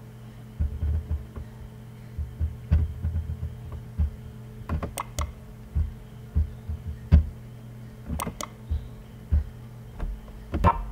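Sharp computer-mouse clicks, several of them single and two pairs as quick double-clicks, over a steady electrical hum and soft low thumps from the desk or microphone.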